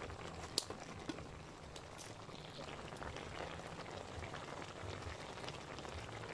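Frog stew simmering in a metal pan over a wood fire: a faint steady bubbling with scattered small clicks.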